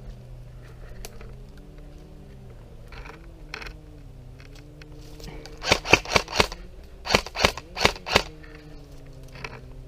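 Airsoft gun firing semi-automatic shots in two quick strings of four, about four shots a second, with a short pause between the strings.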